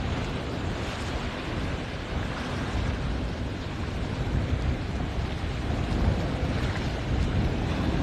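Steady rushing of waves and wind buffeting the phone's microphone, a dense rumbling hiss with no distinct events.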